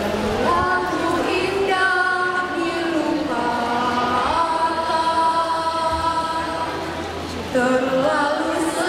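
Mixed choir of women's and men's voices singing long held notes in harmony, with a new, louder phrase starting near the end.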